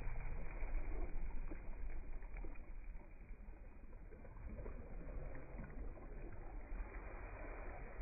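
Dragon boat being paddled: faint, irregular splashes of paddles in the water over a steady low rumble, getting quieter over the first few seconds.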